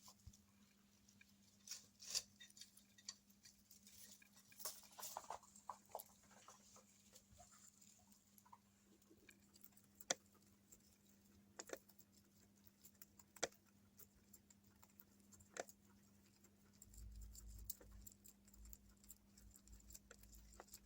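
Faint, scattered clicks and light rustles of pet guinea pigs moving about, over a low steady hum. A low rumble comes in near the end.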